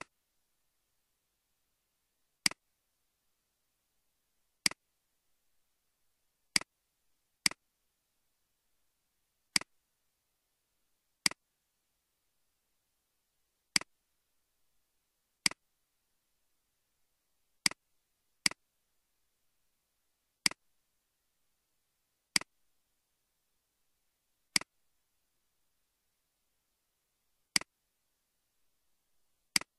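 Computer mouse clicking: about fifteen single sharp clicks spaced unevenly one to three seconds apart, with dead silence between.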